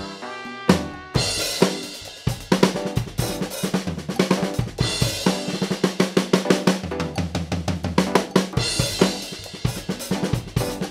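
An acoustic drum kit played in a steady groove, with snare, bass drum, hi-hat and cymbals, just fitted with new Remo heads and new snare wires. It plays along with a backing track that carries a low bass line. A single accent comes under a second in, then a short sparse gap before the full beat picks up again a little past two seconds.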